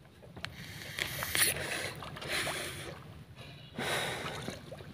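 Water lapping and splashing against the wooden hull and outrigger of a small outrigger boat, in a few soft surges with small knocks between them.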